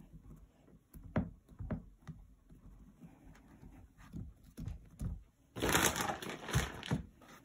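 Hands pressing and working soft plasticine clay on a canvas-covered board, with a few soft thumps in the first couple of seconds. About five and a half seconds in comes a louder rustling and handling noise lasting over a second as the recording phone is moved.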